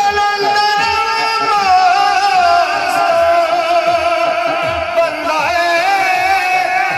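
A group of men singing a Punjabi naat through a PA system, holding long wavering notes together over a steady low beat of about three pulses a second.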